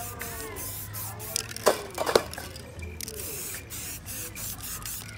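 Short hisses from an aerosol spray-paint can, sprayed in quick bursts, with two loud sharp knocks about two seconds in.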